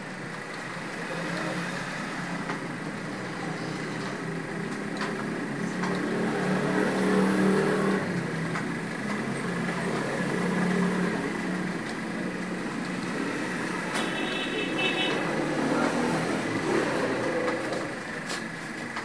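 A steady engine-like rumble, like road traffic, swelling and easing off in the middle. A thin steady high whine runs under it.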